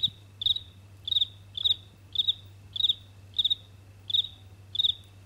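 Cricket chirping in a regular rhythm, nearly two high chirps a second, heard over a walkie-talkie's open channel with a low hum; the hum and chirps cut off together near the end as the transmission ends.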